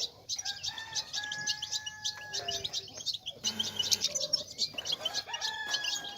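European goldfinches twittering: a dense stream of rapid, high chirps, the excited chatter that keepers play to set males singing. Through it run two longer, lower drawn-out calls, each stepping down in pitch at the end, one early and one in the second half.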